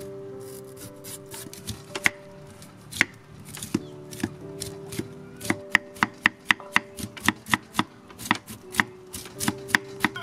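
Kitchen knife slicing thin pieces off a peeled bamboo shoot, each stroke ending in a sharp tap on a wooden cutting board. The taps come irregularly at first, then settle into a quick steady run of about three or four a second from about halfway through.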